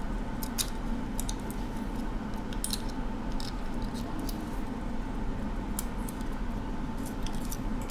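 Light, irregular clicks and small scrapes of an iPhone 6 Plus logic board and metal housing being handled as the board is worked loose from the case, over a steady background hum.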